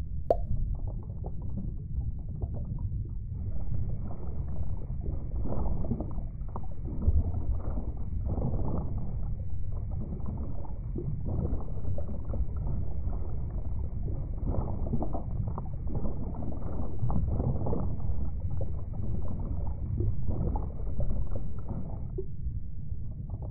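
Muffled underwater ambience: a steady low rumble with continuous bubbling and gurgling.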